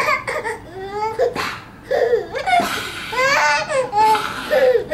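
Baby laughing hard in high-pitched squeals, with breathy, gasping in-breaths between them.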